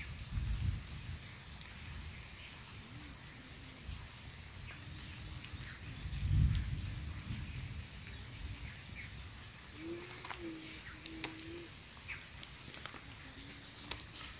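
Outdoor rural ambience: small birds chirping over and over in short high notes, with a couple of low thumps and a faint low call about ten seconds in.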